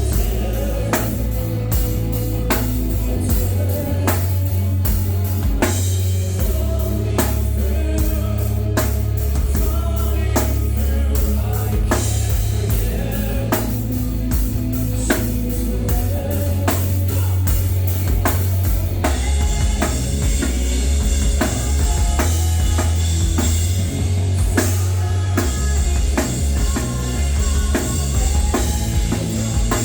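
Rock band playing live: drum kit, guitar and bass together, the drums hitting steadily. Cymbals wash over the top more heavily from about two-thirds of the way in.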